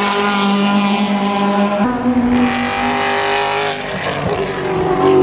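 Le Mans endurance race car's engine at high revs on the circuit, its pitch stepping up sharply about two seconds in.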